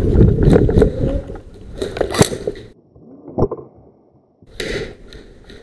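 Rustling and handling noise on the microphone from a player moving in airsoft gear, with several sharp clicks and knocks in the first two and a half seconds. A single sharp knock follows in a quieter stretch, then a short burst of noise.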